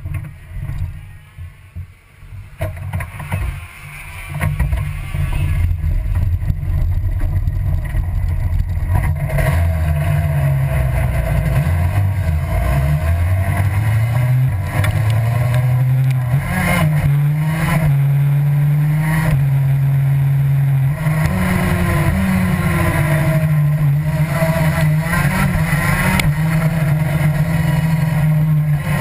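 Racing go-kart engine heard onboard while lapping, its pitch rising and falling over and over with the throttle. It is quieter and uneven for the first few seconds, then runs loud and steady.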